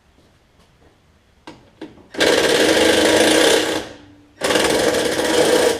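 Cordless impact wrench hammering a 3/8 bolt loose on a mower's gas tank, in two bursts with a short pause between them, after a few light clicks of the socket going on.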